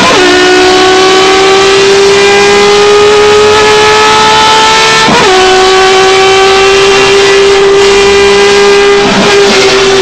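Race car engine at full throttle heard from inside the cockpit, its pitch climbing slowly through each gear, with an upshift right at the start and another about five seconds in.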